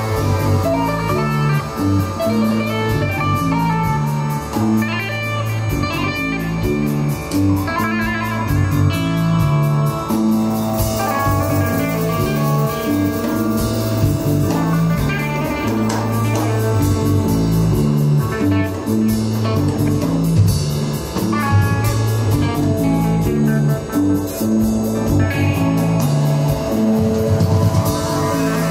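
Live instrumental psychedelic rock: electric guitar playing over a repeating low bass figure and a steady drum beat with cymbals ticking.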